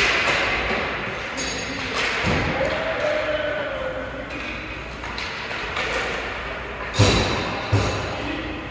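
Ice hockey game in an echoing arena: sudden thuds and knocks of play, a pair about two seconds in and the two loudest under a second apart near the end, over a noisy rink background.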